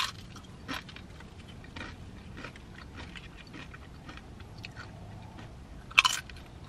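Tortilla chips bitten and chewed close to the microphone: a loud crunch at the start and another about six seconds in, with softer crunching chews in between.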